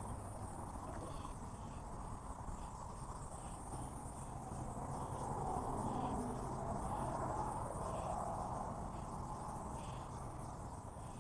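Aerosol spray paint can hissing in long passes, swelling louder partway through, over a steady high insect trill.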